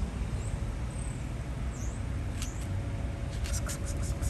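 Steady low outdoor rumble, with faint high chirps in the first half. About three and a half seconds in comes a quick run of soft clicks and rustles as a cat's face and whiskers brush against the phone.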